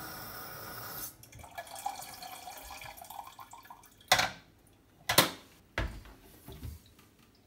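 Kitchen tap running into a plastic water-filter jug's top reservoir, shut off about a second in, leaving a faint trickle and drips. Then two sharp plastic clicks as the jug's hinged lid is closed, and a knock of the jug against the stainless steel sink.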